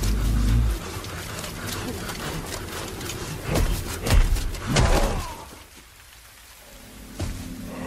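Film sound effects of a giant on the move: deep heavy thuds of its footfalls over a dense, crackling hiss of breaking brush. The thuds come at the start and again about four and five seconds in, then the sound drops away sharply before a low steady drone sets in near the end.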